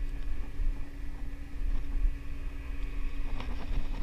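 Steady low hum of a boat's motor, with wind rumbling on the microphone.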